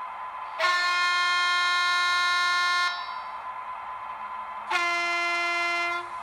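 Sound decoder of an N-gauge Arnold class 143 electric locomotive model playing its horn sample twice through the model's small speaker: a long blast of about two seconds, then a shorter one of about a second, over a faint steady whine.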